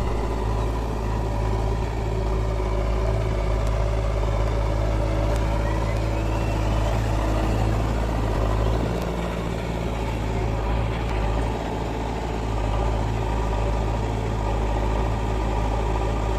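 Heavy diesel engine of earth-moving farm machinery running steadily at a constant speed, a deep even drone with no clear revving.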